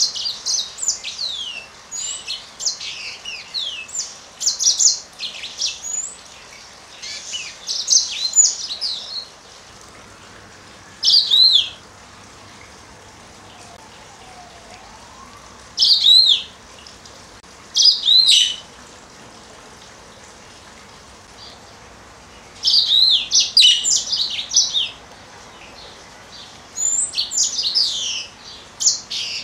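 Female yellow-fronted canary (Serinus mozambicus) calling in bouts of high chirps and whistles: a dense run of quick chirps for about the first nine seconds, then a few short separate calls, then more clustered chirping near the end. Among them are the calls known as the "coo" and the "wolf whistle".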